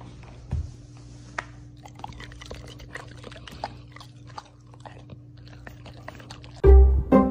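Labrador retriever chewing and licking at something held on a stick: a run of small, irregular wet clicks and crunches over a steady low hum. Loud music with plucked strings cuts in near the end.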